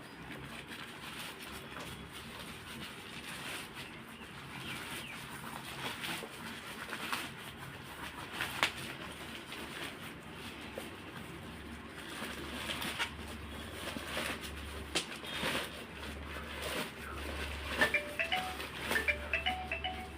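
Plastic packaging and bubble wrap being handled and pulled off a box: irregular crinkling, rustling and crackling, with a low hum in the background over the second half.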